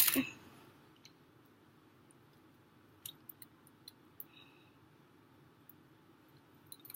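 Wooden popsicle sticks being handled and woven together: a brief clatter right at the start, then a few faint, scattered clicks of sticks against each other.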